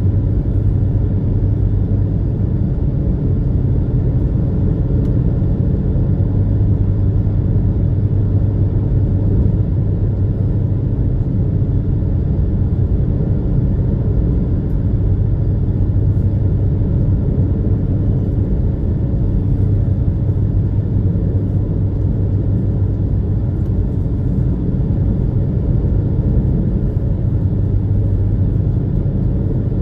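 Steady low drone of the Super Jet high-speed ferry's engines underway at speed, a constant loud rumble with a deep hum.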